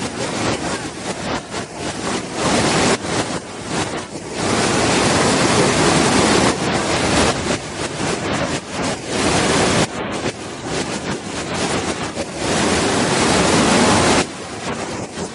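Waterfall: a loud, steady rush of falling water that swells and eases every few seconds, with louder stretches in the middle and near the end.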